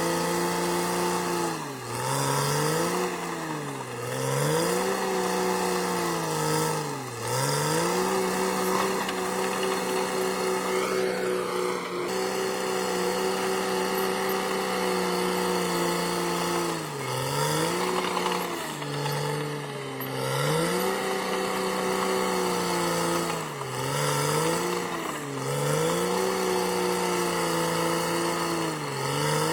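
Caterpillar D6R XL bulldozer's diesel engine running hard. Its pitch sags sharply and climbs back about eight times, each dip lasting a second or so.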